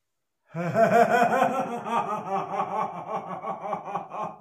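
An elderly man laughing loudly, head thrown back: a long, rhythmic run of 'ha-ha' pulses, about five a second, starting about half a second in.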